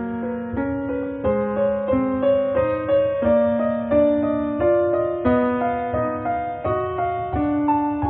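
Background keyboard music, piano-like in tone, playing a slow, even run of single notes over held lower notes.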